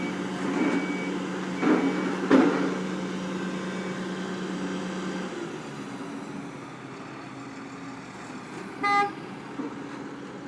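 Heavy construction machine's diesel engine running steadily with its reversing alarm beeping and two loud clanks in the first couple of seconds; the engine dies away about halfway through. A single short horn toot sounds near the end.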